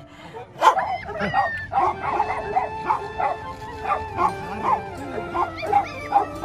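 Repeated short animal calls, about two to three a second, with music playing behind them.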